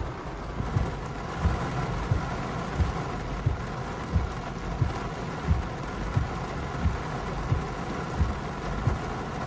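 Rain on a car, heard from inside the cabin as a steady hiss, with windshield wipers thumping at the end of each stroke about every two-thirds of a second.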